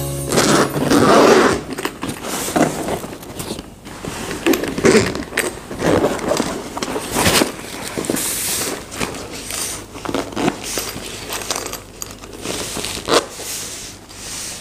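Handling noise from a padded fabric drone carrying case being opened and its lid lifted: irregular rustling and scraping with scattered clicks and light knocks.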